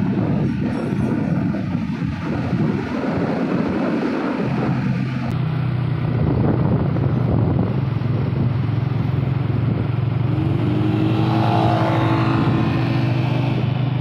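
Vehicle travel noise: wind and road rush, then from about four seconds in a steady low engine hum, with rising engine tones near the end.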